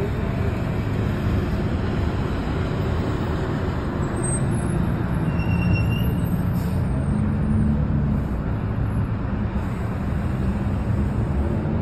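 Steady road traffic on a multi-lane avenue: cars, SUVs and vans passing, their engines and tyres making a constant rush.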